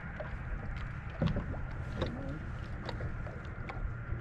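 Small waves lapping and slapping irregularly against a bass boat's hull under a steady low wind rumble, with a faint, steady high-pitched hum.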